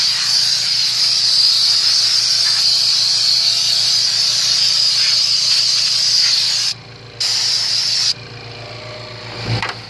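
Loud, steady air hiss from an open vacuum line or port on a running AMC 360 V8, drawing in air. It drops out for a moment about seven seconds in, comes back, then cuts off about a second later, leaving the engine idling underneath.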